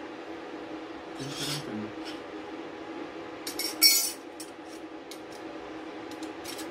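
Aluminium pieces clinking and scraping against a steel welding table as they are set in place, loudest just before four seconds in, followed by a few light clicks. A steady hum runs underneath; no welding arc is heard.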